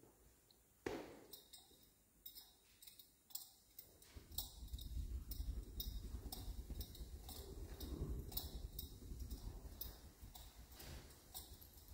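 Faint, irregular light clicks and ticks, two or three a second, over a low rumble that comes in about four seconds in, with a single sharp knock about a second in.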